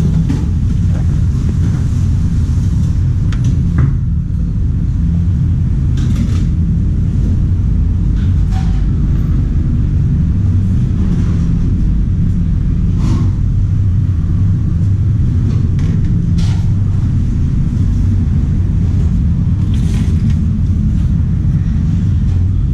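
Steady low rumble of a small restaurant's background noise, with a few faint clicks and clinks scattered through it.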